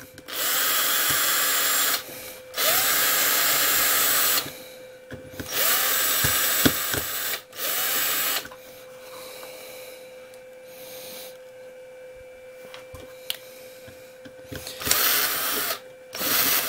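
Electric screw gun driving screws into a plastic chassis brace: about six runs of a second or two each, the motor starting and stopping between screws, with a longer pause in the middle.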